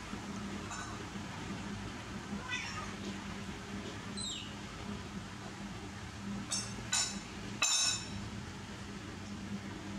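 Baby monkey giving short, high-pitched squeaks and cries: a few faint ones, some gliding down in pitch, then three louder ones in quick succession past the middle. A steady low hum runs underneath.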